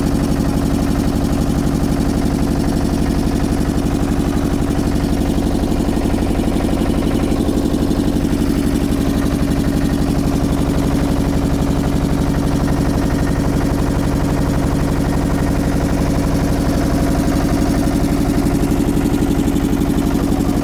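Motorboat engine running steadily at a constant speed, an even pulsing hum that does not change throughout.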